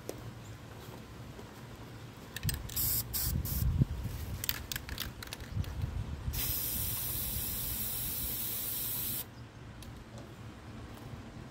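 Aerosol spray paint can spraying into the corner of a cardboard flat: a few short bursts, then a steady hiss of about three seconds that cuts off suddenly.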